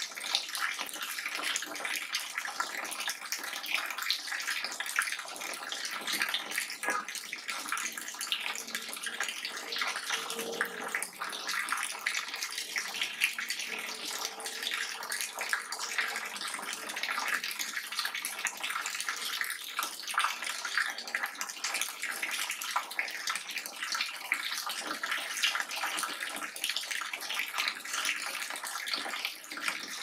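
Water falling fast into standing water, a steady, dense splashing made up of many small drops and splashes.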